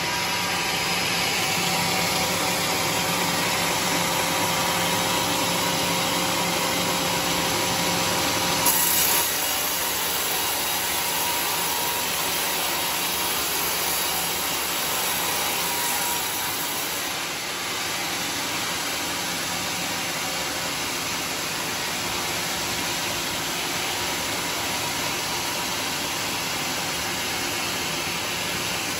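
Band sawmill blade ripping lengthwise through a thick teak beam, a steady saw-and-motor noise that runs on without a break. There is one short sharp knock about nine seconds in, and a faint hum in the noise fades away a little past halfway.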